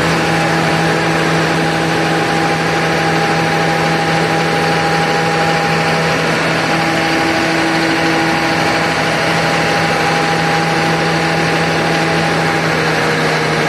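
500 kVA Cummins silent diesel generator running steadily under electrical load, its output dumped into a barrel of water through three electrodes in a water load test. An even, unbroken engine hum with a strong low tone.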